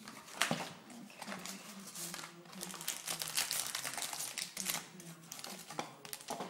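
Foil trading-card packs and plastic wrapping crinkling as they are handled and lifted out of a cardboard box, with a sharper snap about half a second in.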